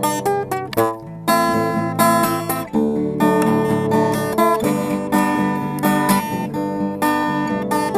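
Acoustic guitar strumming chords without singing, the instrumental close of a song.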